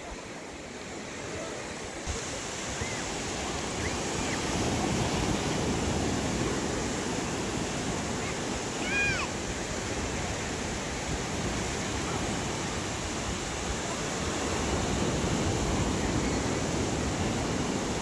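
Ocean surf breaking on a sandy beach: a steady wash of waves that swells a little louder after a couple of seconds. A brief high call cuts through about halfway through.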